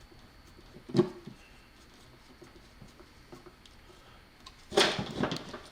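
Parts and tools being handled at a workbench: a single sharp knock about a second in, a few faint ticks, then a burst of rustling and clattering near the end.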